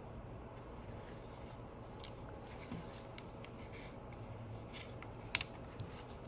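Faint rubbing and scratching of fingers or a tool pressing an adhesive gasket onto an iPhone 11's frame, with one sharp click about five seconds in.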